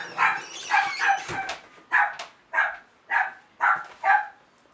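A dog barking repeatedly: about ten short barks, roughly one every half second.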